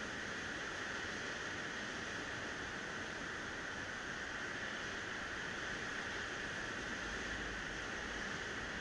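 Steady rushing hiss of Baltic Sea surf breaking along a sandy shore, with no distinct single wave standing out. A brief low rumble comes in about seven seconds in.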